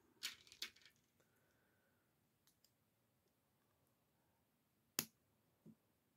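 Small plastic LEGO pieces clicking as they are handled and pressed together: a quick flurry of clicks in the first second, then one sharp click about five seconds in, with near silence between.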